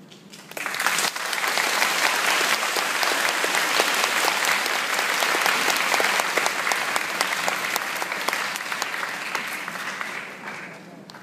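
Audience applauding: dense clapping that starts about half a second in, holds steady, and dies away near the end.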